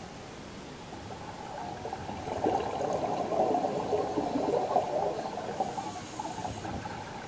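Scuba diver's exhaled breath bubbling out of a regulator, heard underwater: a gush of bubbles that builds about two seconds in, lasts some four seconds and fades, over a steady faint underwater hiss.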